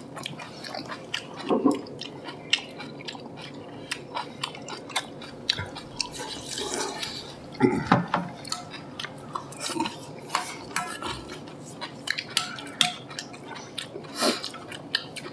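Chopsticks and spoons clinking and scraping against bowls during a meal, many irregular sharp clicks.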